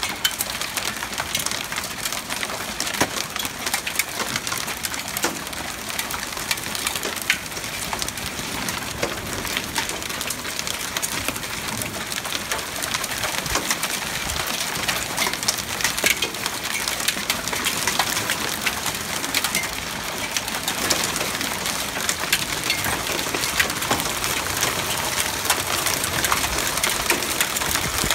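Hail pelting a wooden deck and lawn: a dense, steady clatter of countless small ticks over a hiss of rain, growing a little louder and denser about halfway through.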